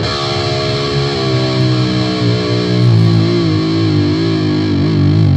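Distorted electric guitar music that starts abruptly, with held notes that waver with vibrato partway through.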